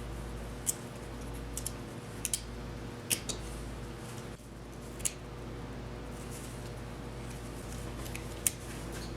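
Light, scattered clicks and taps of engine parts and hand tools being handled during motorcycle engine assembly, about half a dozen spread unevenly, over a steady low hum.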